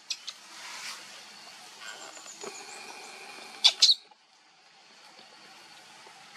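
Baby monkey squeaking in distress: a few short high squeaks at the start and one loud, sharp squeal a little past halfway, then quieter.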